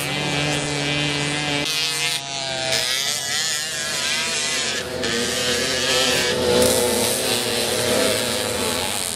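Moped engines racing on a dirt track, revving up and down in pitch as they pass. The sound shifts abruptly a few times.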